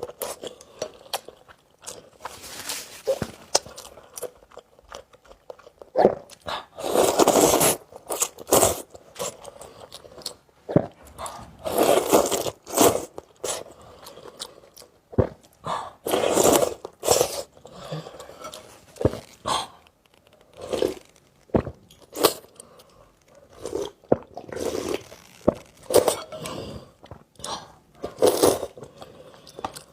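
Close-miked eating of noodles: wet chewing and mouth sounds in irregular bursts, with short sharp clicks between them.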